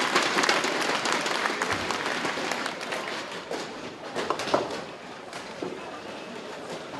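Crowd applauding in a bowling hall, dying away over the first three seconds. A few sharp knocks follow around four to five seconds in.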